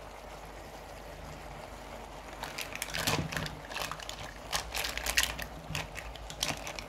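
A steady low hum, then from about two and a half seconds in a run of irregular sharp clicks and crackles.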